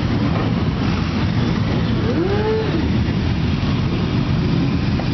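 Many motorcycle engines running together as a column of bikes rides past one after another, a dense steady rumble. About two seconds in, a short tone rises and falls over it.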